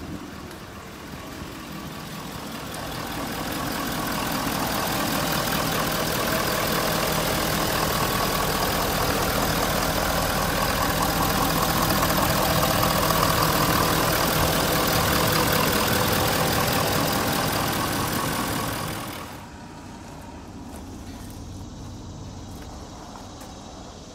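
Ford 6.7 L Power Stroke V8 turbodiesel idling steadily, heard up close in the open engine bay and growing louder over the first few seconds. About three-quarters of the way through it cuts off abruptly, leaving a much quieter background with a few faint clicks.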